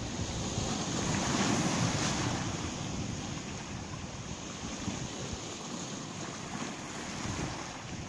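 Small Baltic Sea waves washing in over a pebble and boulder shore, the surge loudest about one to two seconds in, with wind on the microphone.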